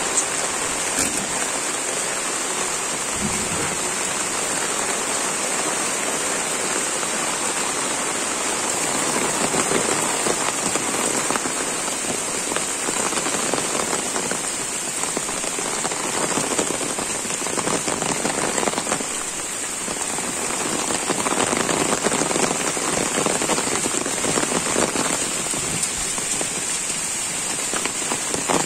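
Steady rain falling on leaves, grass and waterlogged ground, a dense even hiss that swells and eases a little.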